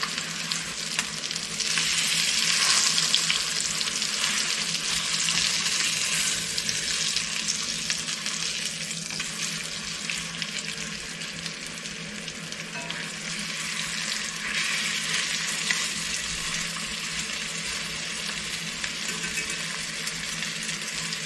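Chuck roast searing in hot oil in a pan: a steady sizzle that swells louder about two seconds in and again around two-thirds of the way through.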